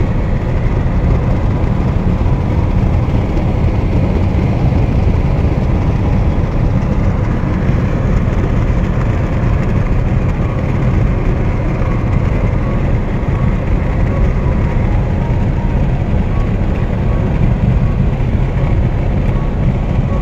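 Steady road and engine noise from inside a car cruising at highway speed: a dense, even rumble strongest in the low end.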